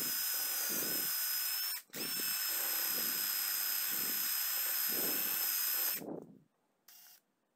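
Cordless drill spinning a small drum attachment, with a steady motor whine and a pulsing rubbing as a block is held against the drum. It stops briefly just under two seconds in, starts again, and winds down about six seconds in.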